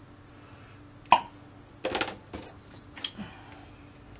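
Small objects handled on a hard workbench: one sharp click about a second in, then a few lighter knocks and rattles.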